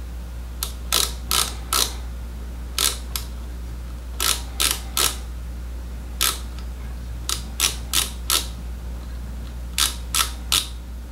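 Ratchet stop of a digital micrometer clicking in short runs of one to four clicks as the thimble is turned down on a nickel silver ferrule slide; the clicks mean the spindle has seated and the ratchet is slipping at its set measuring force. A steady low hum runs underneath.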